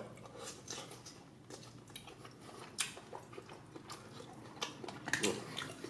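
A person chewing food close to the microphone, with scattered soft clicks.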